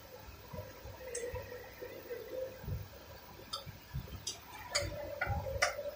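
A few sharp metallic clicks and soft knocks at irregular intervals, coming closer together in the second half, from hand work on the underside of a vehicle's front differential, over a faint steady hum.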